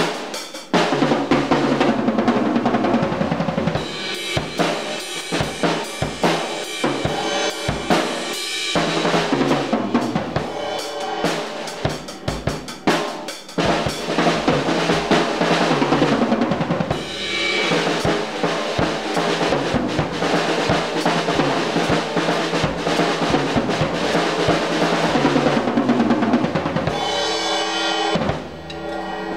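Premier Club drum kit played with sticks: bass drum, snare, toms and cymbals in a continuous pattern, dropping in level near the end.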